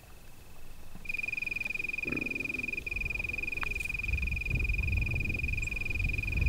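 A continuous high-pitched trill, the call of a small animal, getting much louder about a second in. Low rustling and wind noise build up over the second half as the hunter crawls through dry grass.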